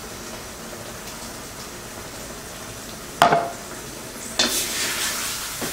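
Wooden spatula stirring chicken in green curry sauce and freshly poured chicken stock in a stainless steel pan, over a low simmering hiss. A sharp knock about three seconds in, then a louder sizzling hiss near the end.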